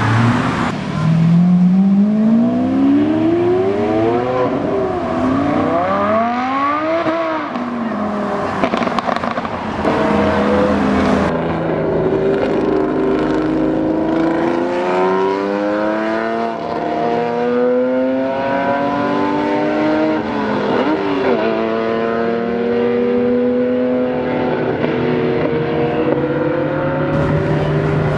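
High-performance car engine accelerating hard, its pitch climbing steeply and dropping back at each upshift, several gear changes in a row, then settling to a steadier lower note near the end.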